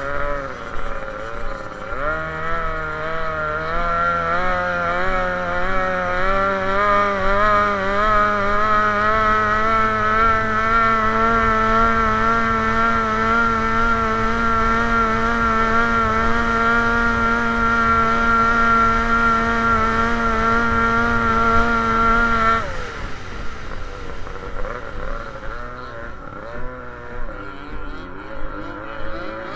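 Small racing boat's engine running hard at a steady high pitch, heard from on board. About a second in the revs dip and climb back, and late on they drop sharply to a lower, uneven speed.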